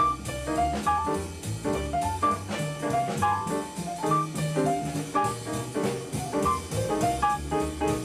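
Small jazz combo playing: a quick line of short melodic notes over piano, double bass and drums.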